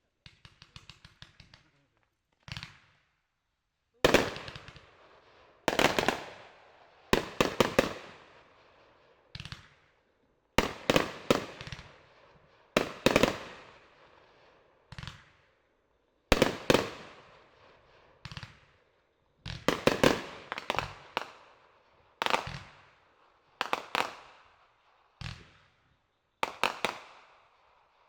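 Fireworks going off: sharp bangs every second or two, often two or three in quick succession, each trailing off in a fading echo. Near the start there is a short run of rapid crackling.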